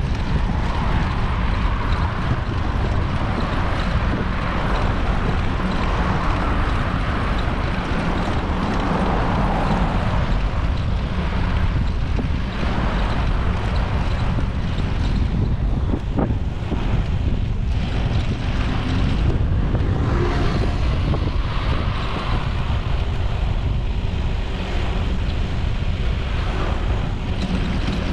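Steady wind rumble on a moving microphone mixed with the noise of city road traffic.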